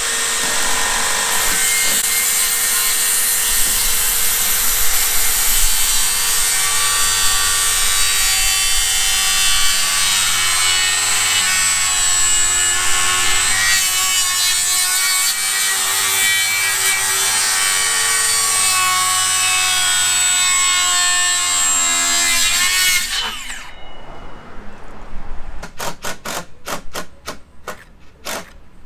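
Cordless DeWalt 60-volt FlexVolt circular saw spinning up and ripping a long 57-degree bevel along a wooden board, running steadily under load for about 23 seconds, then winding down when the trigger is released. A few quick ticks follow near the end.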